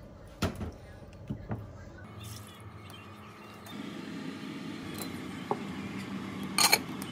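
A spatula knocks against a saucepan three times while stirring. A steady hum and hiss of cooking on the hob follows, with one sharp clack near the end.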